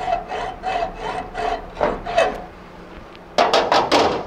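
Hacksaw cutting into a soldered copper pipe joint held in a vise, even back-and-forth strokes about three a second with the blade ringing, deepening a slot that is not yet deep enough to peel the joint open. The sawing stops about two seconds in, and near the end come several loud sharp metal knocks.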